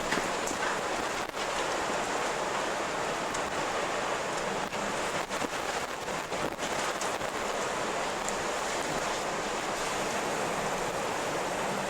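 Strong wind blowing steadily: an even, rushing hiss that holds the same level throughout.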